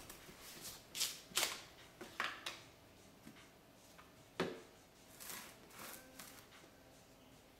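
Plastic handling sounds: the screw-top lid of a plastic jar of activated carbon twisted off and set down, and a plastic reactor tube picked up and moved, giving a few sharp clicks and knocks with short rustles, the loudest knock about four and a half seconds in.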